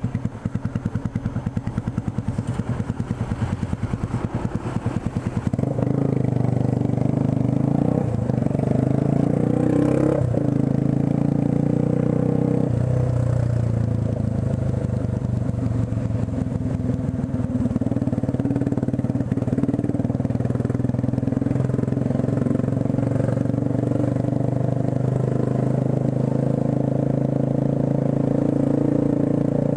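Motorcycle engine idling with an even pulsing beat, then about five seconds in it gets louder as the bike pulls away, and it runs steadily under way, its note shifting a few times in the first half.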